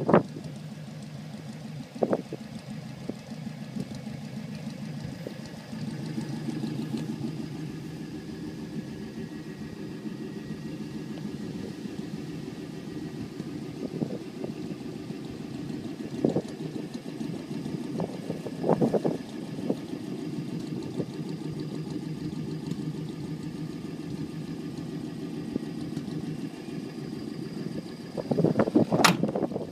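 Car engine idling steadily, a little louder from about six seconds in, with a few short knocks and a burst of rustling near the end.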